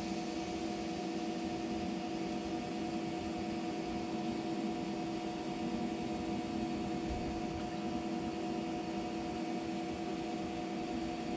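Steady machine hum with a low, unchanging drone.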